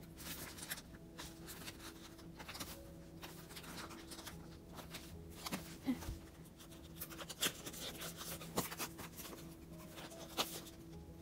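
Light rustling, scraping and clicking of small photo cards being slid into plastic binder sleeve pockets by hand, over a faint steady hum.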